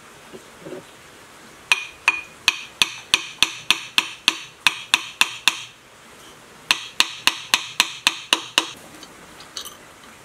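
Claw hammer tapping the metal impeller of a sewage electric pump to seat it on its shaft, with sharp, ringing metallic strikes. A run of about fifteen quick taps, three to four a second, a pause of about a second, then about nine more.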